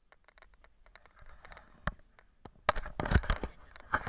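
Crinkling, scraping and tearing of packaging being handled, with scattered sharp clicks; it gets loudest a little under three seconds in.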